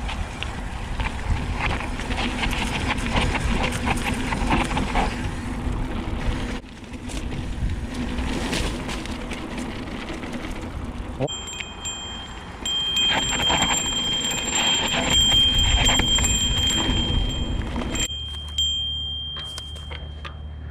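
Mountain bike riding down a dirt trail: a rough rumble of tyres on dirt, with rattling clicks and wind on the microphone. From about halfway through to near the end a steady high-pitched squeal comes in, typical of the disc brakes dragging on the descent. Near the end the rumble gives way to a low, steady hum.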